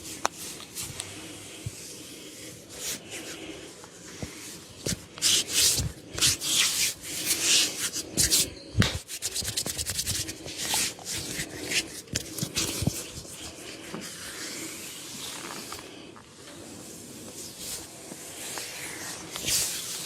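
Hands rubbing and massaging skin in quick, uneven strokes, with a few sharp clicks among them.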